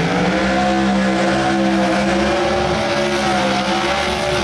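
Chevrolet Beretta drag car's engine held at high revs during a burnout, the rear tyres spinning and smoking. The revs climb briefly at the start, then hold steady.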